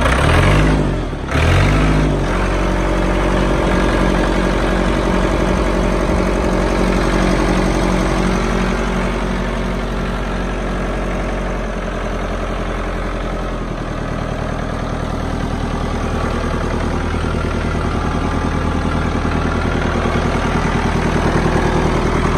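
Ford 6610 tractor's four-cylinder diesel engine revved up and down twice in quick succession at the start, then idling steadily, a little louder toward the end.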